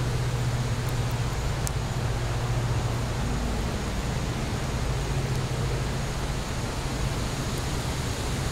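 Fire burning in a fire pit: a steady rush of noise over a low rumble, with one faint sharp crackle about two seconds in.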